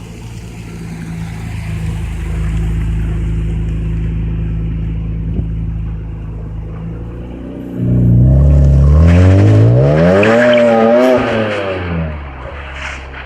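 BMW E46 M3's straight-six through a full Magnaflow exhaust, running with a steady low drone, then about eight seconds in it revs up sharply and loudly, holds and wavers briefly, and drops back down.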